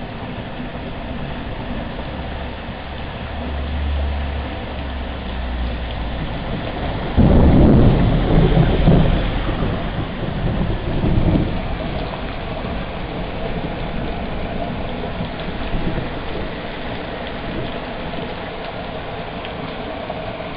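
Thunderstorm: steady rain falling on pavement, with a low rumble of thunder a few seconds in, then a sudden loud thunderclap about seven seconds in that rumbles on for several seconds before easing back to the rain.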